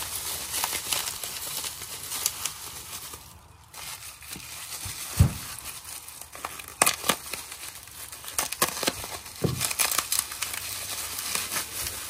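Packing material crinkling and rustling as it is handled, with scattered clicks and a low thump about five seconds in.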